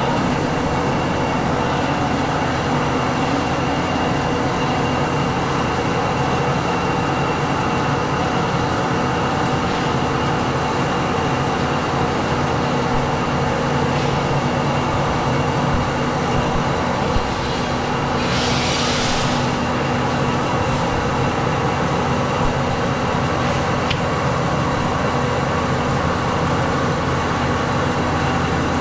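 Marvel 8-Mark-1 vertical bandsaw running idle with no cut: its three-phase motor, variable-speed drive and moving blade give a steady hum and whir, with the coolant pump running along with the blade. A short hiss comes about two-thirds of the way through.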